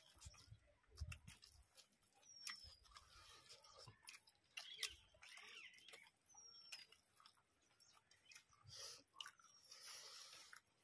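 Faint eating-by-hand sounds: fingers mixing rice and curry on steel plates, with chewing and small clicks and crackles. A bird gives a short falling chirp about three times.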